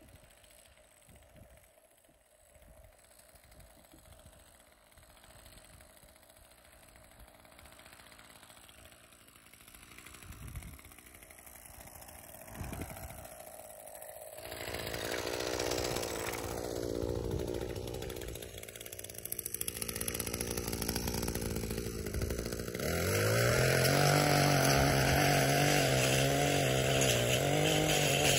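Gas string trimmer cutting a lawn edge along concrete. The engine is faint at first and grows louder about halfway through. In the last few seconds it runs at high speed with a steady whine.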